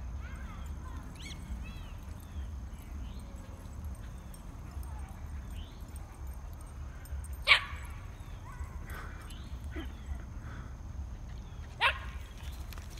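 Dogs playing, with two short, sharp barks about four seconds apart, the second a little quieter than the first.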